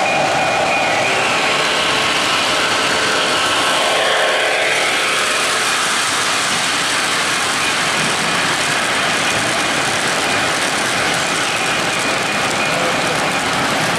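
Weaver O gauge model train, a Chessie System GE U25B diesel with coal hoppers and boxcars, running past on the layout's track: a steady rushing rumble of wheels and motors.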